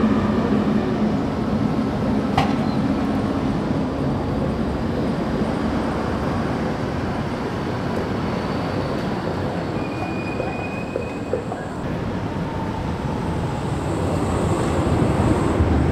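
Tatra T3SUCS tram running past on street track: a steady rumble of wheels on rail and running gear, with a sharp click about two seconds in and a short high wheel squeal about ten seconds in.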